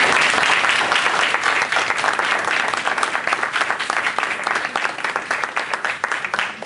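Audience applauding in a small room, dense clapping that thins out to a few scattered claps near the end.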